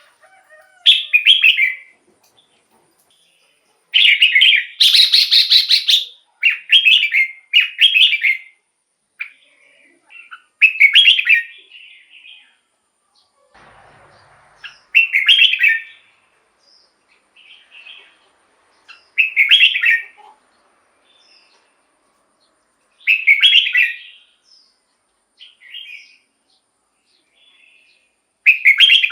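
Red-whiskered bulbul singing short, loud, warbled phrases of about a second each, repeated every few seconds, one of them longer and harsher about five seconds in.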